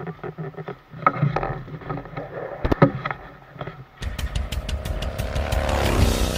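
Motorcycle engine running at low speed as the bike rolls off slowly, with a couple of sharp clicks a little before three seconds in. About four seconds in, music with a steady drum beat cuts in and covers it.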